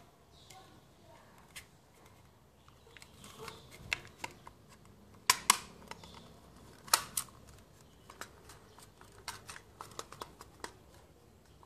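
Sharp plastic clicks and small taps from handling a plastic toy revolver, with two loud double clicks about five and seven seconds in and a scatter of lighter ticks after them.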